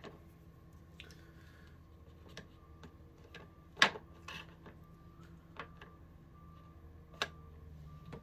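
Light clicks and taps of plastic Play-Doh tubs and pieces being handled on a glass tabletop, with two sharper knocks about four and seven seconds in. A faint truck reversing alarm beeps steadily in the background.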